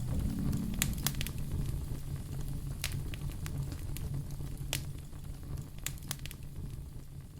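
Log fire in a fireplace crackling, with scattered sharp pops over a low steady rumble of the flames, slowly getting quieter.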